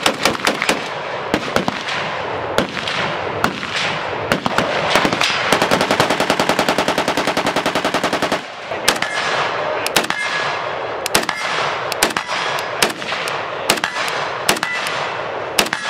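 Gunfire from semi-automatic firearms including a FosTech Origin 12 12-gauge shotgun: quick strings of single shots. About five and a half seconds in, a fully automatic burst lasts roughly two and a half seconds, after which single shots resume.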